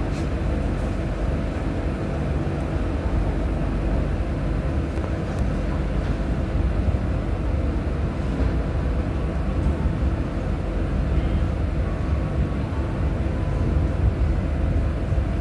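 Passenger train rolling slowly, heard from inside the carriage: a steady low rumble with a few faint clicks.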